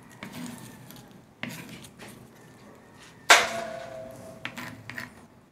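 Small kitchen knife knocking and scraping on a wooden chopping block while onions are peeled, a few separate knocks with one louder clack about three seconds in that rings on briefly.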